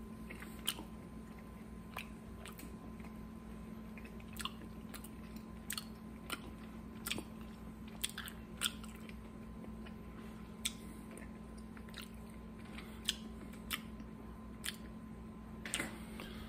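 A man chewing an escargot: soft wet mouth smacks and clicks at irregular intervals, over a faint steady hum.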